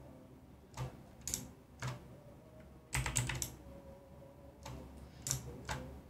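Clicky mechanical keyboard with blue switches being pressed: scattered single keystrokes, with a quick run of presses about three seconds in.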